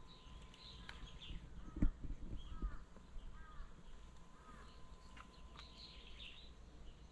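Small birds chirping outdoors: short arched notes repeated every second or so, with higher twittering above them. A few low thuds come about two seconds in.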